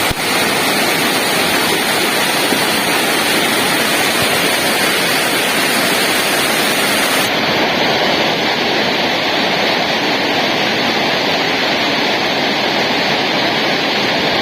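Waterfall: water pouring and splashing in a loud, steady rush close by.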